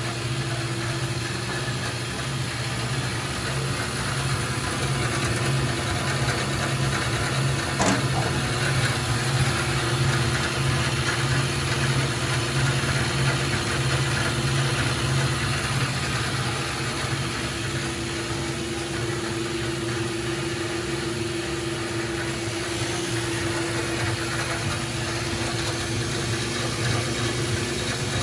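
Grob NS18 vertical band saw running under power: a steady motor and blade hum with a constant low tone.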